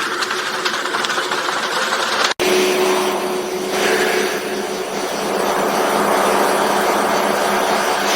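Steady running noise of processing machinery with a constant hum. It drops out abruptly for an instant about two seconds in, then resumes.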